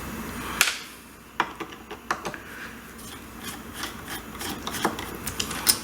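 Phillips screwdriver backing out the small screws of a carburetor's top cover: irregular clicks and ticks of the bit working in the screw heads, with light metal scraping.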